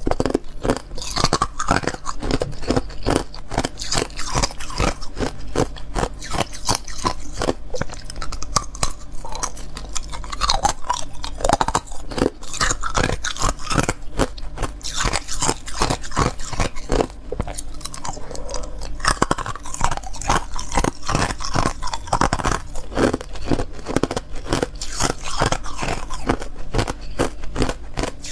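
Close-miked biting and crunching of small pieces of clear ice, with many sharp cracks and crunches in quick, irregular succession.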